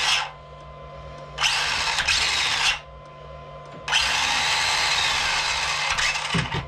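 Brushless motor and drivetrain of an ECX Torment truck spinning up under throttle on the bench, in two bursts of about one and a half and two and a half seconds, with a faint steady whine in between. The motor wires are still connected backwards.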